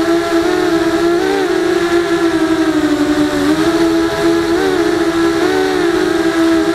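FPV mini quadcopter's electric motors and propellers whining steadily, the pitch dipping and wavering briefly a few times as the throttle changes.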